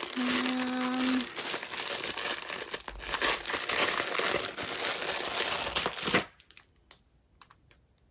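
Plastic packaging crinkling and rustling as it is handled, stopping abruptly about six seconds in, followed by a few faint clicks.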